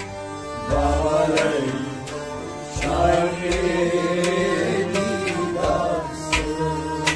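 Kashmiri Sufi devotional music: a man singing a drawn-out, wavering melody over a harmonium's sustained reed chords, with a long-necked plucked lute adding sharp, regular plucked strokes.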